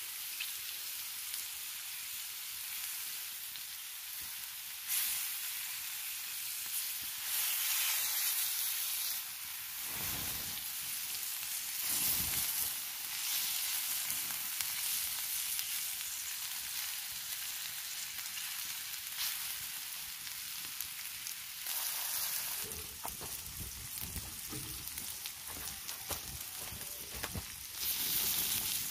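Beefsteak pieces and halved tomatoes sizzling on a hot flat cooking stone: a steady hiss that swells louder several times. Crackles and light knocks join in during the last several seconds.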